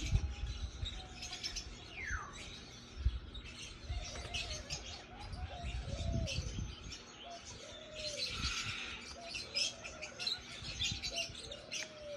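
Small birds chirping, with a series of low arched calls repeating from about four seconds in and a few low handling bumps.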